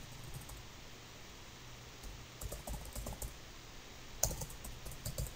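Typing on a computer keyboard: faint keystroke clicks in two short runs, the sharpest click about four seconds in.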